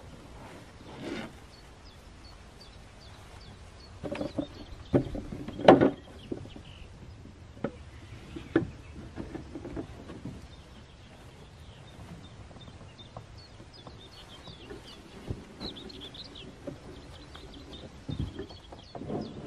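Scattered knocks and thumps of a canoe being handled as it is lifted off a car roof and set on a wheeled canoe trolley, the loudest about six seconds in. Small birds chirp in the background.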